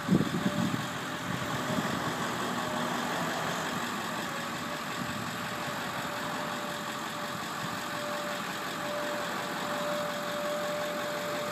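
Ford E-350 van engine running at idle to power an Altec bucket truck's hydraulics while the boom retracts and folds down, with a steady hydraulic whine from about four seconds in. A short loud low thump comes in the first second.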